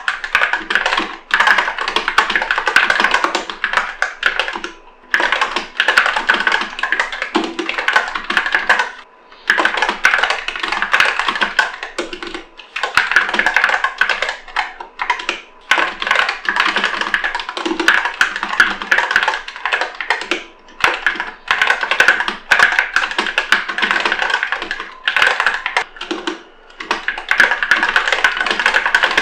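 Epomaker SK64 mechanical keyboard with Gateron Optical Black linear switches being typed on quickly, in runs of rapid keystroke clicks broken by short pauses every few seconds.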